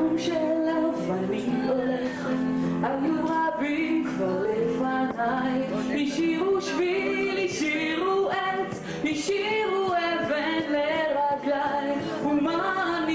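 A girl singing a song to her own piano accompaniment. Steady piano chords play throughout, and the sung melody comes in about two seconds in.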